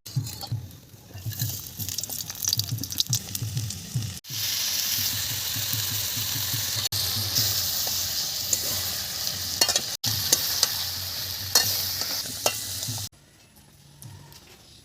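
Food frying and sizzling in a cooking pan while being stirred. The first few seconds hold irregular knocks and scrapes of stirring; from about four seconds in a steady sizzle with sharp crackles takes over, then cuts off suddenly near the end.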